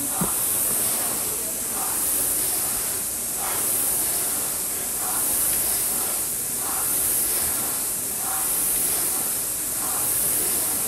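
Air rowing machine's fan flywheel whooshing. The rush swells with each drive stroke and fades on the recovery, about once every second and a half.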